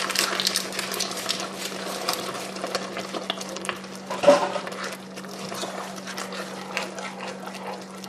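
Wooden spoon stirring gelatin powder into a thick, hot fruit-and-sugar mixture in a pot, with frequent small scrapes and taps of the spoon against the pot. A steady low hum runs underneath, and there is one brief louder sound about four seconds in.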